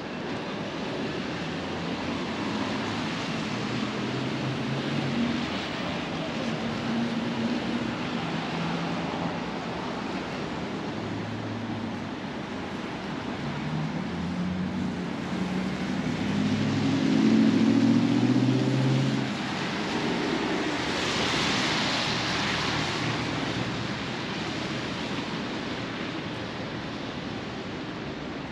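Steady rain hiss on a wet city street. Past the middle, a vehicle passes: its engine hum grows to the loudest point, followed by a hiss of tyres on the wet road.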